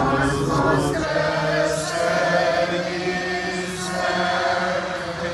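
A congregation singing Byzantine liturgical chant together, holding long notes that move in slow steps.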